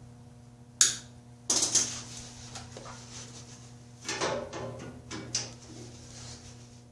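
Short bursts of welding on a go-kart's steel bumper: a brief crackle about a second in, then longer crackling runs near the second and fourth-to-fifth seconds, over a steady low electrical hum.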